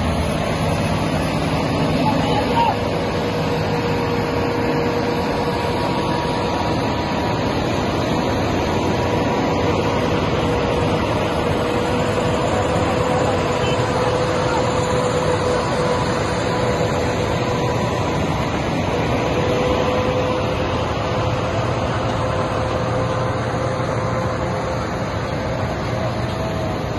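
Heavy diesel tipper trucks running steadily while towing a very heavy load, a constant engine drone with a held whine.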